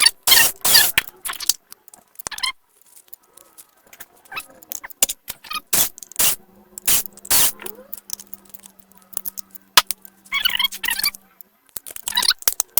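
Scattered sharp clicks, taps and rattles of small tools, screws and plastic laptop parts being handled during disassembly. A steady low hum runs for about five seconds in the middle.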